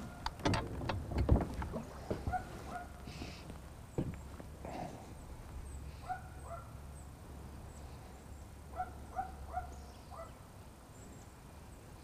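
Knocks and bumps on the deck of a small fishing boat: a few loud ones in the first two seconds and another about four seconds in, with short faint chirps now and then.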